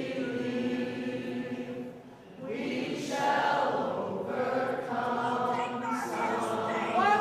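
A group of people singing together in long held notes, with a brief break about two seconds in.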